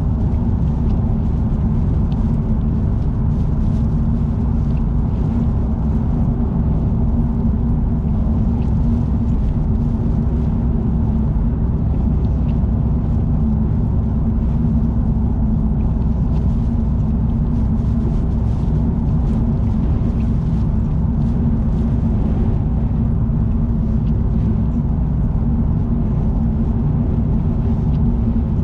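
Car driving at speed on an expressway: a steady low rumble of tyre and engine noise that does not change through the stretch, with faint scattered ticks above it.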